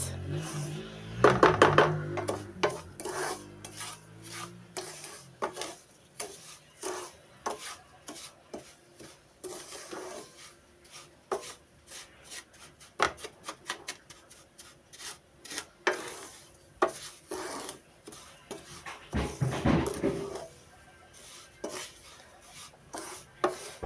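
Wooden spatula stirring and scraping dry, buttery semolina around a non-stick pan in quick, irregular strokes. The grains are being toasted in butter for semolina halva, the stage where they are stirred without stopping so they brown evenly.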